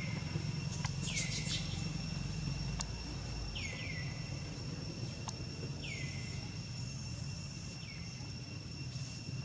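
Outdoor ambience: a steady high-pitched insect drone, with a bird repeating a short downward-sliding call every second or two, over a low rumble.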